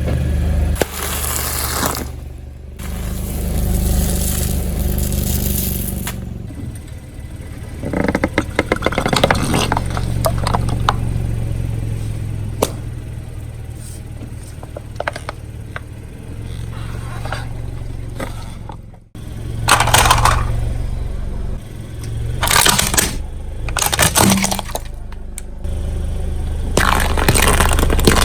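Car tyre crushing brittle objects: repeated bursts of cracking and crunching over the low, steady running of the car's engine.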